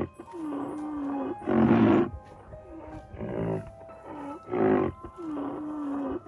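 Rhinoceros calls: drawn-out notes that dip and rise in pitch alternate with short, loud, harsh calls, the pattern repeating about every second and a half.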